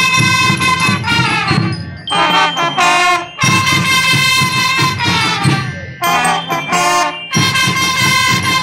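Student brass band with percussion playing: brass holds chords in phrases broken by brief pauses, over a drum beat.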